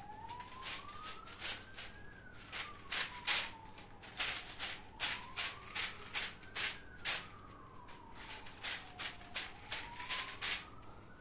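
Oiled fingertips pressing and dimpling soft pide dough on baking paper, making irregular sharp taps and crackles. Behind them an emergency siren wails more faintly, rising and falling slowly about every four and a half seconds.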